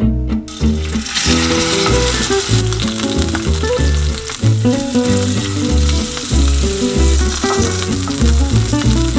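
Steak sizzling as it sears in hot oil in a cast-iron skillet, with butter and garlic in the pan by the end. The sizzle comes in about half a second in and stays steady, over background acoustic guitar music.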